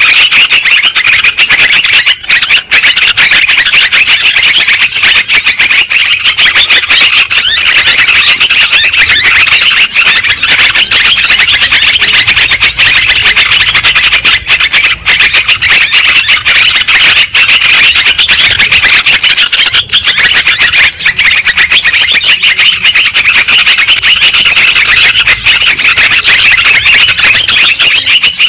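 Bird-lure recording of yellow-vented bulbuls (trucuk): a loud, unbroken stream of rapid, overlapping chirps and chattering calls.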